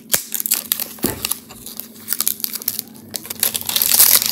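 Plastic wrapping on an eyeshadow palette box crinkling and tearing as it is pulled open by hand, in irregular crackles that get louder near the end.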